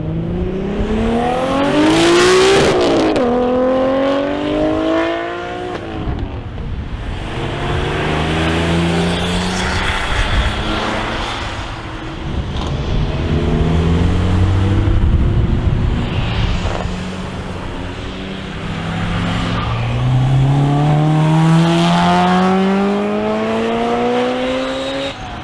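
Car engine accelerating hard, its pitch climbing and dropping back at each gear change, over and over.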